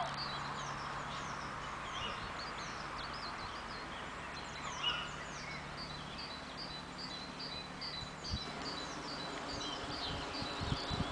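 Recorded birds calling from loudspeakers in the trees: a steady run of short high pips, about three a second, mixed with many short downward-sliding chirps.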